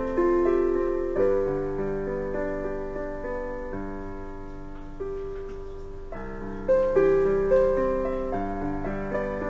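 Slow background piano music: single notes and chords struck and left to ring and fade, with a louder chord about seven seconds in.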